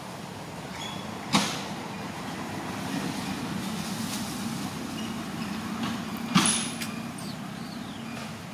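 A motor vehicle's engine running steadily as a low hum, with two sharp knocks about five seconds apart.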